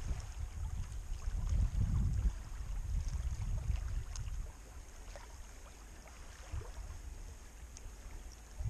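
Wind buffeting the body-worn camera's microphone in gusts, easing off about halfway through, with a few faint small clicks.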